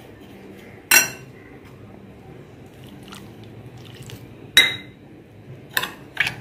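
Steel spoon stirring and scraping damp semolina in a glass bowl, with a few sharp clinks of the spoon against the glass: a loud one about a second in, another with a short ring at about four and a half seconds, and smaller ones near the end.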